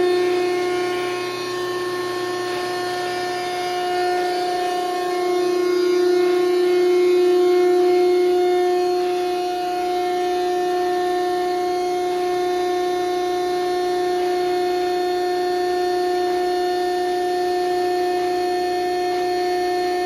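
Hydraulic power unit of an SP Industries VB-60 vertical cardboard baler running, its pump giving a steady, unchanging whine.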